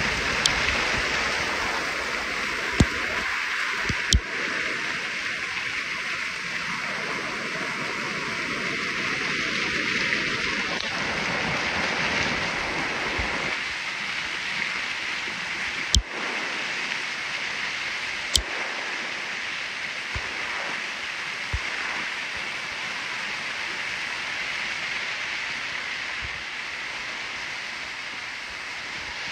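Muddy floodwater from the season's first rain rushing and churning over rocks down a normally dry desert arroyo, a steady rush broken by a few sharp knocks.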